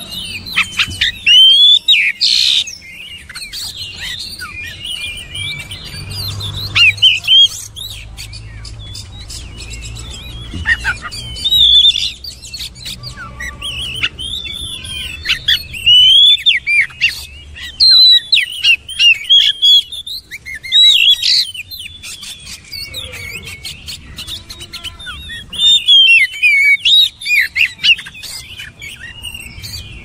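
Oriental magpie-robin (kacer) singing: loud phrases of varied whistles and quick chirps, delivered in bursts with short pauses between them.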